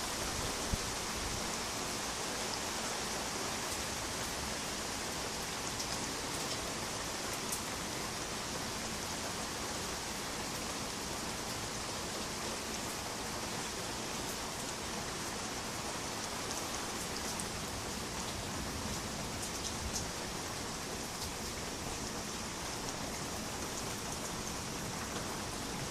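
Steady thunderstorm rain falling, an even hiss with occasional faint drop ticks.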